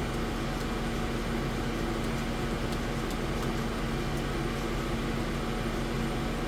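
AtomStack Hurricane CO2 laser engraver running a job: a steady machine hum with a constant low tone, and faint light ticks now and then.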